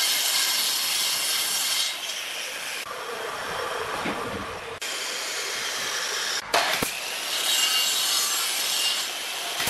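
Makita miter saw cutting through a strip of wooden molding, a dense high hiss of blade in wood, with the sound changing abruptly a few times as the footage cuts. A single sharp crack about two-thirds of the way in is the loudest moment.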